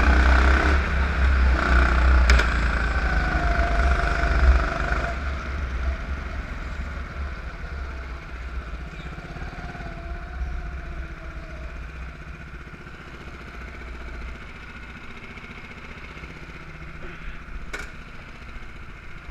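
Go-kart's small engine running at low speed as the kart is driven slowly back, loud at first, then dropping to a quieter steady run after about five seconds. A sharp click about two seconds in and another near the end.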